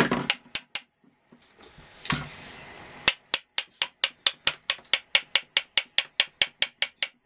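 Daewoo Nexia heater blower motor being tapped on its metal housing to knock out carbon dust from the worn brushes. A few scattered clicks and a brief rustle come first. About three seconds in, a run of quick, evenly spaced knocks begins, four or five a second.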